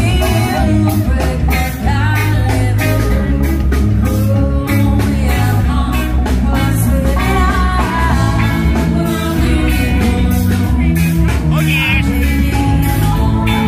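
Live rock band playing, with electric guitars, a drum kit and a lead singer, loud and with a steady beat.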